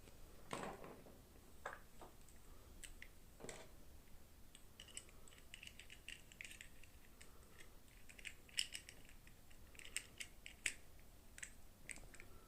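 Small plastic toy packaging and doll parts being handled during an unboxing: a couple of soft rustles in the first few seconds, then a run of many quick light clicks and taps.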